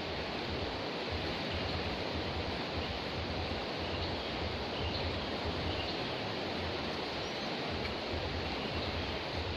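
Steady rushing of a river running high after a flood.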